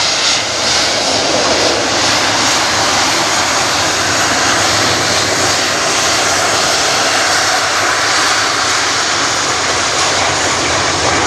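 Jet engines of a Jet2 Boeing 737 airliner moving past at close range on the ground: a loud, steady rushing noise that holds the same level throughout.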